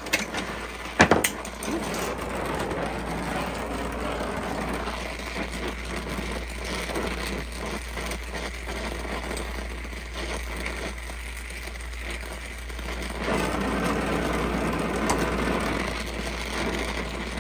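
Gas torch flame rushing steadily as it heats a steel rifle bolt handle clamped in a vise, getting somewhat louder for a few seconds near the end. A couple of sharp metal knocks come about a second in.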